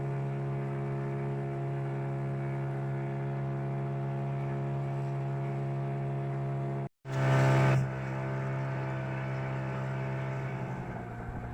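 Fishing boat's engine running at a steady speed, cutting out briefly about seven seconds in; near the end it runs rougher and slightly lower.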